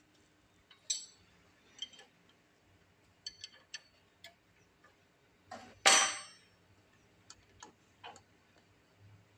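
Irregular sharp metal clicks and light clinks, with one louder clank about six seconds in: metal parts and tools being handled at a brake lathe before it is started.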